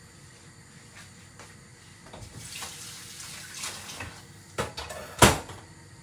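Kitchen noises off camera: a brief watery hiss, then a few sharp knocks, the loudest a single hard knock about five seconds in, like a cupboard door or a pan being set down.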